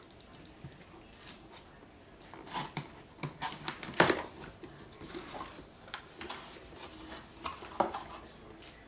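Cardboard retail box of a RODE NT-USB microphone being slit open and handled: scattered scrapes, taps and clicks of a small blade and fingers on the cardboard seals. A sharper knock comes about four seconds in and another near the end as the lid comes free.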